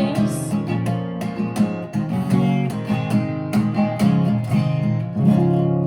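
Guitar playing the instrumental close of a song, with a run of plucked and strummed notes. A final chord struck about five seconds in rings on and fades.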